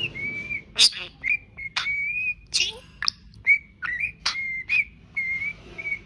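Budgerigar whistling short held notes at nearly the same pitch, broken by sharp chirps and clicks about once a second.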